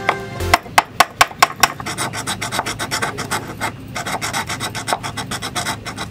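A hand tool scraping and filing a 3D-printed plastic housing, trimming out the recess that holds the stepper motor. A handful of sharp strokes about half a second in give way to quicker, even scraping strokes, several a second, with one short pause.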